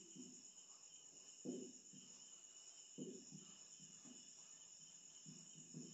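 Near silence: room tone with a faint steady high-pitched whine, broken by a few soft, brief sounds.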